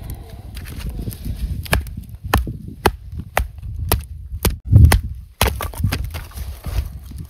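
A series of sharp knocks, about two a second, with a louder thump near the middle, over a low buffeting rumble like strong wind on the microphone.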